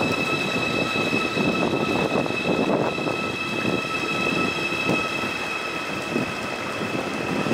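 Passenger train rolling slowly past along a station platform: wheels running and knocking on the rails, with a steady high whine over it.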